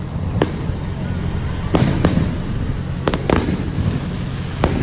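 Fireworks going off: about six sharp bangs, some in quick pairs, each trailing off in a rumbling echo over a steady low rumble.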